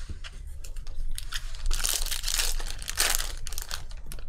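Foil wrapper of a Panini Contenders Draft Picks basketball pack being torn open and crinkled. The crackling is loudest through the middle couple of seconds.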